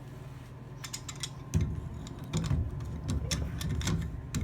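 Metal clicks and clanks of tongue-and-groove pump pliers being adjusted and fitted onto a shower valve's threaded part, with a sharp thump about a second and a half in and handling rumble after it.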